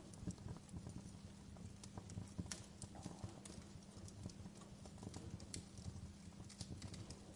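Wood fire crackling in a fireplace: irregular small pops and snaps over a low steady rumble.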